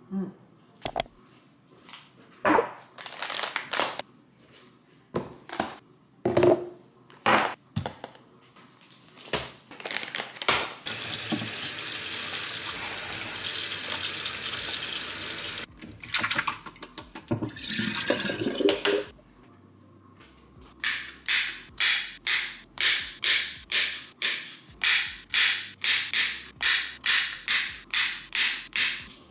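Scattered knocks and clatter, then a kitchen tap running into a stainless-steel sink for about five seconds while mushrooms are rinsed in a plastic colander. Near the end, a knife slices through mushrooms onto a plastic cutting board in an even run of cuts, about two a second.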